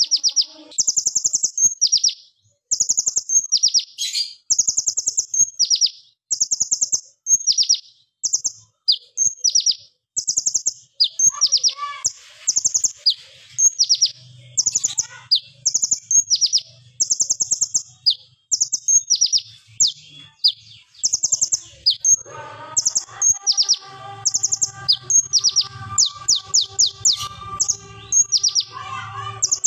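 Male copper-throated sunbird (kolibri ninja) singing: rapid bursts of sharp, high, stuttering notes fired off like a gun, about one burst a second. From about three-quarters of the way through, a fainter, lower background of steady tones joins in.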